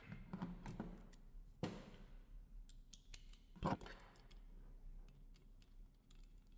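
Metal headlight bracket and projector being handled: light clicks and scrapes, with two sharper knocks about one and a half and three and a half seconds in. Near the end comes faint rapid clicking as a screwdriver goes onto the bracket bolt to tighten it.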